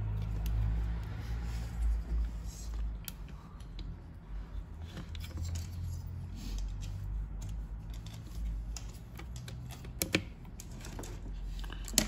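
Light clicks and taps of small parts being handled as the throttle cable is fitted to a Husqvarna 252RX brushcutter's carburettor, with a couple of sharper clicks near the end, over a low steady hum.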